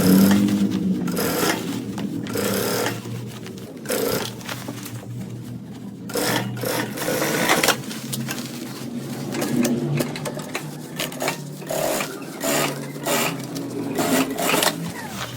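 Sewing machine stitching in short, uneven runs, stopping and starting several times.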